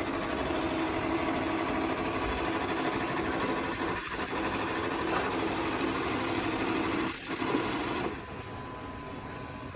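Shark Matrix robot vacuum running as it drives itself back to its dock: a steady whir of the suction motor and brushes, which gets quieter about eight seconds in.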